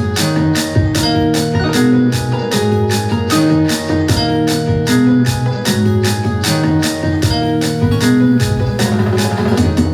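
Recorded music played loud through DJ speakers in a speaker sound test: sustained keyboard chords over a steady beat with about four ticks a second.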